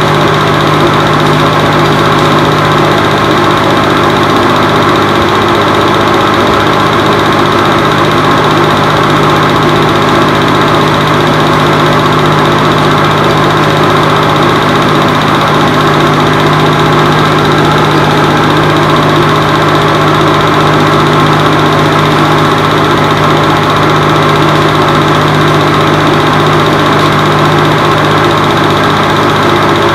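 Film projector running: a loud, steady mechanical whirr and hum that does not change.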